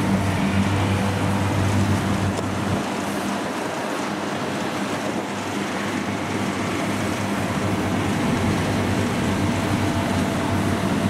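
Kubota rice combine harvester running steadily at working speed, its diesel engine and threshing machinery giving a constant low hum.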